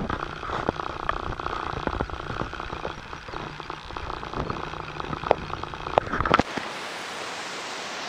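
Rushing outdoor noise on a phone microphone, with scattered sharp clicks throughout. About six and a half seconds in it changes suddenly to a thinner, steady hiss.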